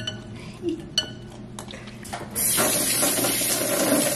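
A few sharp clinks of utensils against a dish. About two seconds in, a loud, steady hissing rush starts abruptly.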